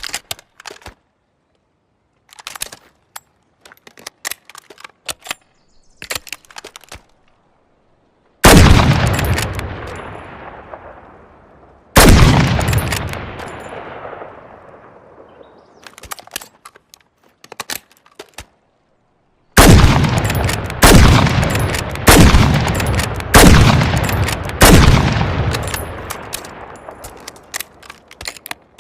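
M24 bolt-action sniper rifle sound effect. Metallic clicks and rattles of the rifle being handled and its bolt worked, then two single loud shots a few seconds apart, each with a long rolling echo. After more clicks, five shots follow about a second apart, their echoes overlapping and dying away.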